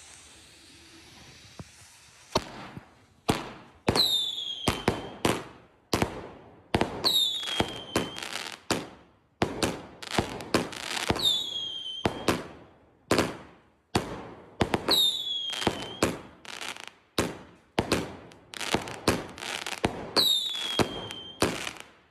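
Fireworks going off: sharp bangs in quick, irregular succession, starting about two seconds in. About every three to four seconds a whistle rises over them and falls in pitch for about a second.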